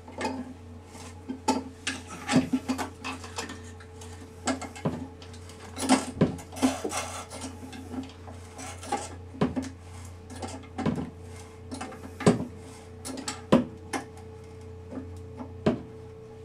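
Irregular light clicks, knocks and rubbing as a new plastic float-and-rod ballcock's fittings are worked and tightened by hand inside a ceramic toilet tank.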